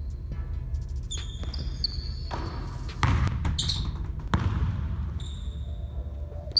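A basketball being dribbled on a hardwood gym floor, with rubber sneaker soles squeaking sharply several times as the players cut. The loudest thuds come about three seconds in and again about a second later.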